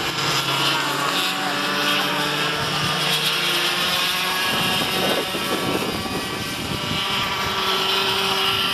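Several small racing kart engines running at high revs around the circuit, their pitches shifting as they go through the corners, with one kart passing close about halfway through.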